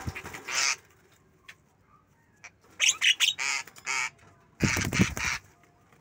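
Javan mynas calling in harsh, loud bursts, in three bouts: one at the start, a run of several calls in the middle and one near the end, with wings flapping at the start.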